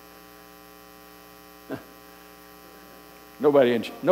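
Steady electrical mains hum through the sound system, with one short click about halfway through. A man's voice starts speaking near the end.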